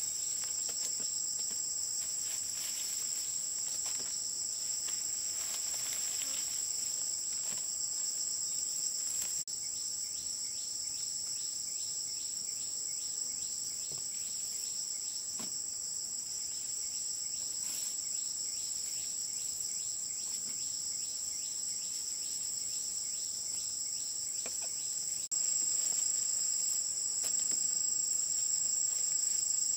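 A chorus of forest insects giving one steady, high-pitched drone. It breaks off abruptly twice, about nine and a half and twenty-five seconds in, and is a little louder after the second break.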